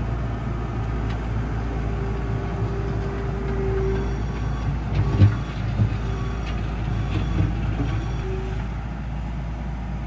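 Skid steer engine running steadily as the machine reverses, with a mid-pitched tone that comes and goes and a few short knocks and clunks about halfway through.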